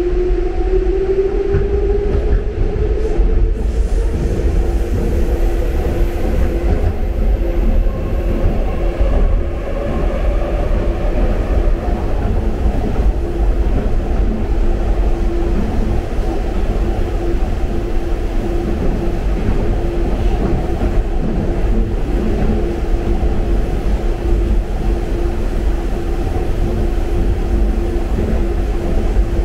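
Metro train running between stations, heard from inside the passenger car: a steady, loud rumble of wheels and running gear. Over the first several seconds a motor whine rises in pitch as the train picks up speed, and a steady hum continues underneath.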